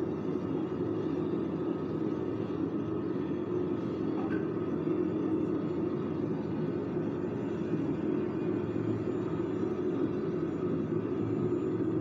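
Airbus Beluga ST's jet engines heard from afar as the freighter rolls out after landing: a steady, even rumble.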